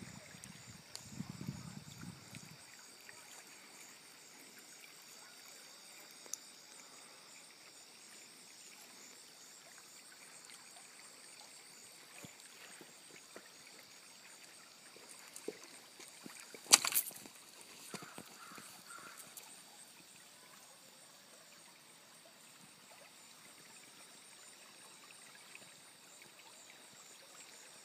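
Shallow river water trickling faintly and steadily over and between rocks. A single sharp knock comes about two-thirds of the way through.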